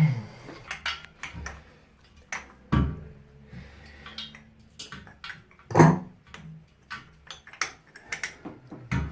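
Scattered clicks, clinks and knocks of metal fittings and hand tools being handled, with two louder knocks about three and six seconds in.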